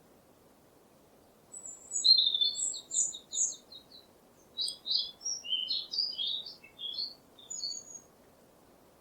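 A songbird singing one song, beginning about a second and a half in: first a fast trill of high, evenly repeated notes, then a jumble of varied chirps and warbles, ending about a second before the end over a faint steady hiss.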